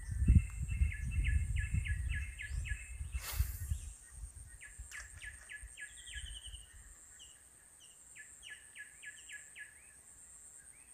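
Small birds chirping in quick trains of short repeated notes, over a steady high-pitched whine. Low rumbling thumps fill the first few seconds, with a short hiss about three seconds in.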